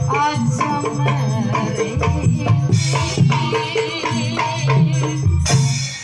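Javanese jaranan dance music: a percussion-led ensemble with drums, steady low gong-like tones and rattling percussion under a high wavering melody. There is a bright crash about five and a half seconds in.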